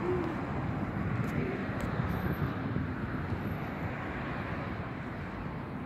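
Steady outdoor background rumble, like a distant engine, slowly getting a little quieter, with no distinct events in it.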